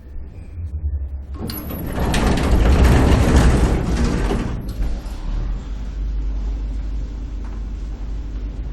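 Electric elevator on a ride: a low hum throughout, with a loud rushing rattle swelling in about a second and a half in and easing off after about three seconds into a steady running hum.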